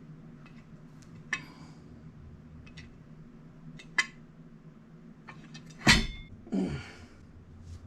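Scattered light clicks and clinks of metal parts and tools being handled, with a sharp knock about six seconds in. A short sound falling in pitch follows it.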